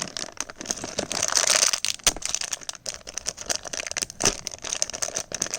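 K'Nex blind-bag packaging crinkling and tearing as it is opened by hand, a dense run of irregular crackles and sharp snaps.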